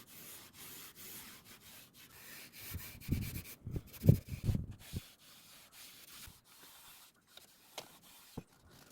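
Rubbing and scraping across a surface, with a few dull knocks in the middle and scattered light clicks.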